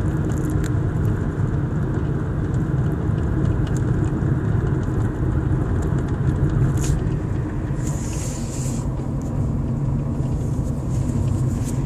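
Steady road rumble inside a moving Kia Cerato's cabin, with a few sharp clicks from the knocking dashboard panel. Near the end, a brief hiss passes by.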